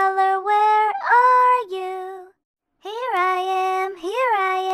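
A high, childlike voice sings a nursery-rhyme colour song unaccompanied, holding long notes that slide between pitches, with a short break about halfway through.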